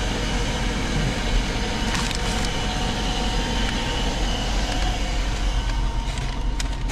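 Steady low rumble and hiss of a car waiting at a standstill, with its fan or engine running, and a few faint clicks and taps.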